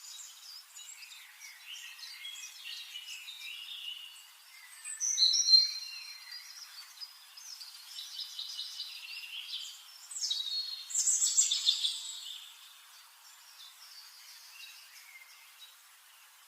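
Birds chirping and singing, several calls overlapping, with a loud whistled phrase about five seconds in and a burst of rapid high trilling around eleven seconds, fading toward the end.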